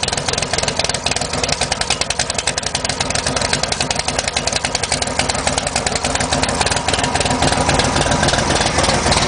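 1965 Shelby Cobra's V8 running at a loud, rough idle with rapid exhaust pulses, a car that hates to idle. It gets a little louder in the last couple of seconds.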